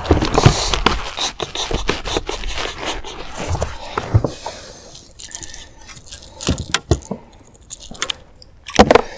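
A small common snook flopping and slapping on a boat's deck, with quick knocks and scraping over the first few seconds, then a few scattered knocks as it is handled and lifted.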